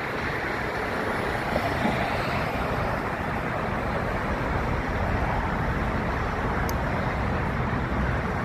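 Steady rushing noise of a twin-engine jet airliner's engines at taxi power, with a low rumble underneath.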